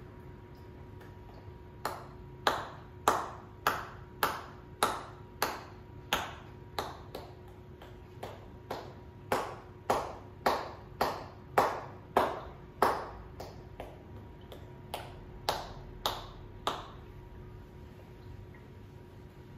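Hands tapping rhythmically on a seated person's shoulders in massage percussion, about two dozen crisp pops at a little under two a second, each with a short ringing tail, stopping a few seconds before the end.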